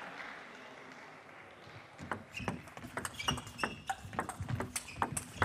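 Table tennis rally: the plastic ball clicking sharply and quickly back and forth off the rackets and the table, starting about two seconds in.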